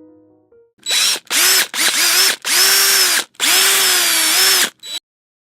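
A small electric power tool motor, such as a drill, run in five short bursts, spinning up and winding down each time, with a brief last blip near the end.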